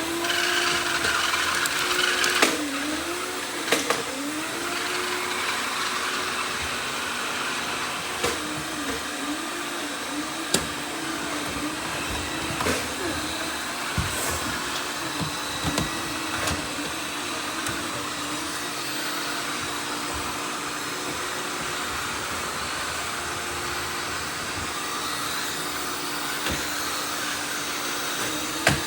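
Several robot vacuum cleaners running together: a steady whir with a hum that wavers up and down in pitch, and sharp knocks now and then.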